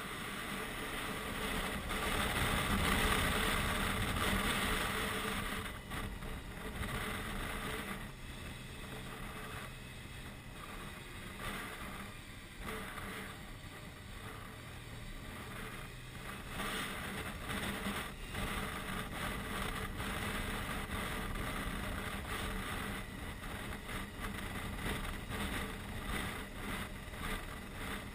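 Touring motorcycle engine running at road speed, mixed with wind rushing over a helmet-mounted microphone. It is louder for a few seconds near the start, then settles to a steadier level.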